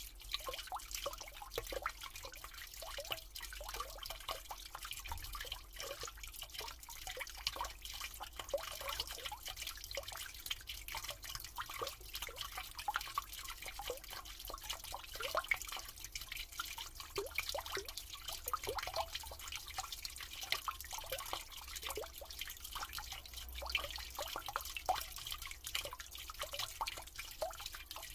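Water running down a drain, with a steady hiss and a constant stream of small, irregular gurgles and drips.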